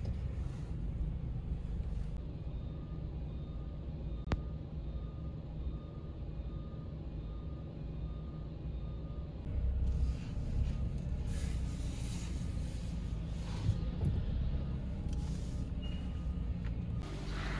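Low, steady rumble of a car's engine and road noise, with a run of short, evenly spaced electronic beeps for about seven seconds that stop near the middle. A single sharp click about four seconds in.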